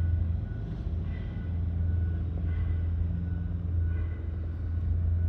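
Steady low machine hum with a faint high whine, unchanging throughout.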